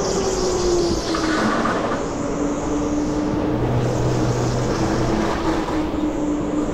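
Electric go-kart driving on the track, heard from on board: the motor's whine falls in pitch over the first couple of seconds and then holds nearly steady, over a constant rush of noise from the moving kart.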